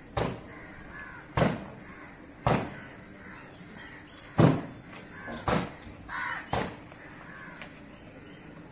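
A crow cawing, six harsh, short caws about a second apart.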